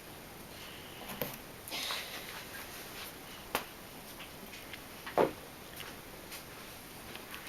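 A few sharp clicks and taps of small metal parts and tools being handled during lens disassembly, with the loudest tap a little past the middle and a brief soft rustle around two seconds in.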